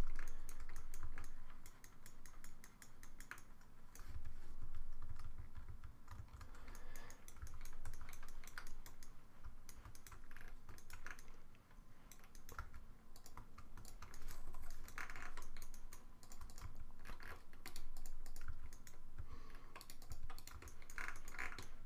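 Computer keyboard and mouse clicking in scattered, irregular strokes, the pattern of shortcut keys rather than steady typing, with a few dull low thumps.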